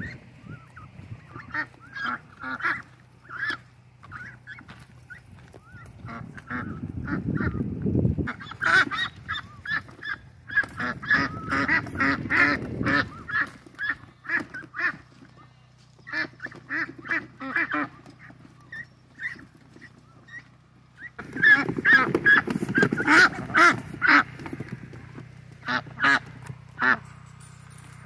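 Ducks quacking in rapid runs of short calls, loudest in two busy stretches, one about a third of the way in and one near the end, over a steady low hum.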